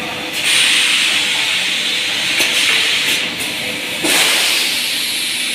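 Machine hissing in two long surges, strongest in the upper middle range. The hiss starts sharply about half a second in, eases a little, then surges again about four seconds in.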